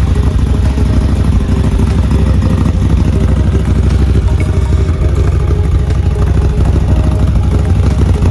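Off-road vehicle engine running loud and steady, with low rumbling throughout.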